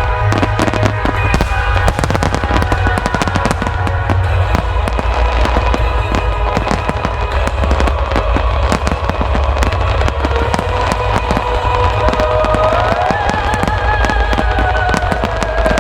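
A dense, rapid barrage of aerial firework shells bursting and crackling in a starmine finale, with a heavy low rumble from the booms and music playing over it.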